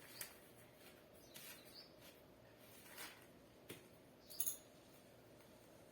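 Faint scraping and a few light taps of a spoon mixing freshly ground almond, black pepper and rock-sugar powder. A few short, high chirps come through faintly.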